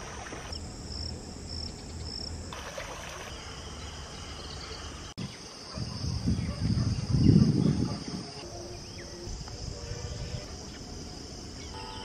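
Steady high-pitched chirring of insects over a low outdoor background. About six seconds in, a louder low rushing noise rises for about two seconds, then fades back.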